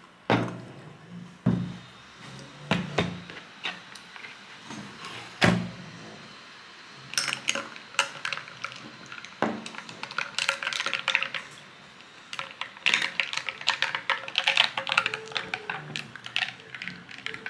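Glassware knocks and thunks, then runs of quick clinks as ice and a metal straw rattle against a glass while an iced coffee is stirred.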